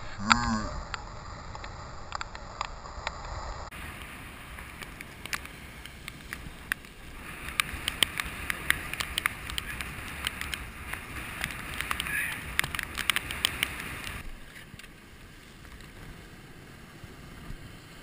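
Wind buffeting the microphone over surf washing against rocks, a steady rumbling hiss with many scattered sharp clicks and taps.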